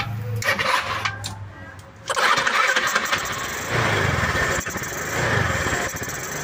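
150 cc scooter engine running on a freshly fitted Sudco 26 mm Keihin carburetor while its idle is being adjusted. About two seconds in, it gets suddenly louder and stays up, swelling and easing a little.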